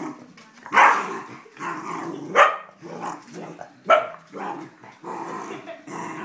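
Small terrier growling continuously, with three sharp snapping barks about a second, two and a half seconds and four seconds in. It is protective play-guarding, aimed at a man's hand reaching toward the children.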